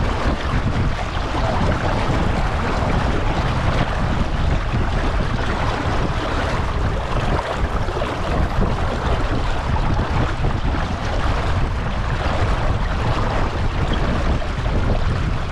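Steady wind buffeting the microphone, with water washing against a small sailboat's hull.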